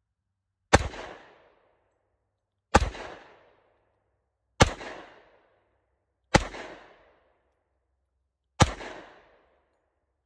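Five pistol shots from a Yugoslav M57 in 7.62×25mm Tokarev, fired about two seconds apart, each a sharp crack with a short echoing tail.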